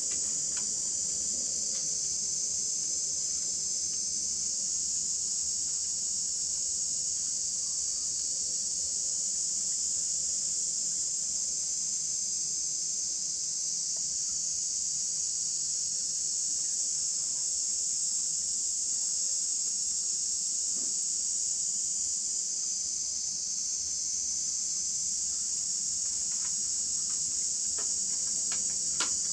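A steady, high-pitched insect chorus that drones without a break, with a few faint clicks near the end.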